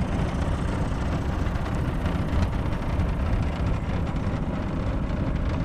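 A small fishing boat under way: its outboard motor running steadily, mixed with a low rush of wind buffeting the microphone.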